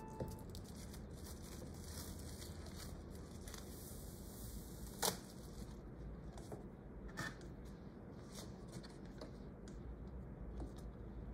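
Hands unwrapping a new manga volume: packaging rustling and tearing, with light handling taps and a bonus card being slid out. A single sharp tap about five seconds in is the loudest sound.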